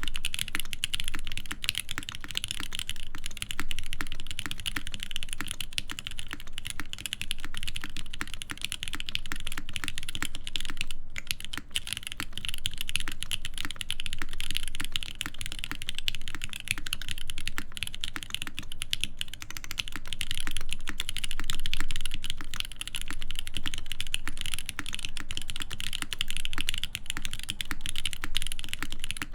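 Continuous typing on an ORI CLS-2//65 mechanical keyboard with a full aluminium plate, GMK keycaps, lubed screw-in stabilizers and Krytox-lubed switches built from Cherry tops, Giant v3 stems and Gateron Ink bottoms. It is a steady stream of keystrokes with one brief pause about 11 seconds in.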